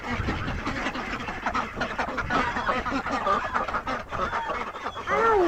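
A flock of domestic ducks, Indian Runners among them, quacking and chattering together as they walk out, many short overlapping calls.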